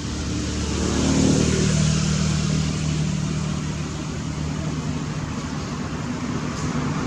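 A motor vehicle engine running steadily with a low hum, getting louder about a second in and then holding.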